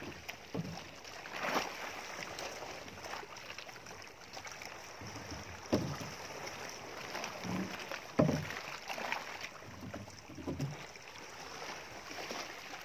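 Hand-paddling a small wooden outrigger boat (bangka): paddle strokes moving water against a steady background of wind and sea, with a few sharper strokes standing out.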